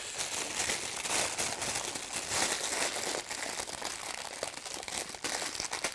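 White wrapping paper crinkling and rustling continuously, with irregular small crackles, as hands unwrap a toy from it.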